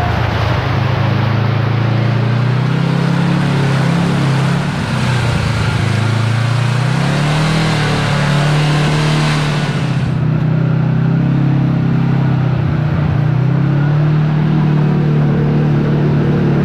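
Kawasaki Teryx KRX4 1000 side-by-side's engine running on a trail, its pitch dipping and rising with the throttle. A steady rushing hiss rides over it and cuts off sharply about ten seconds in.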